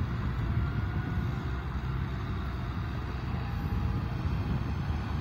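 Kubota M6040SU tractor's diesel engine running steadily as the tractor drives through deep paddy mud.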